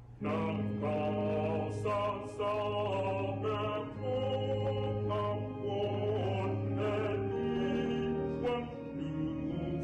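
Mixed church choir singing together, entering sharply just after the start over a sustained low note.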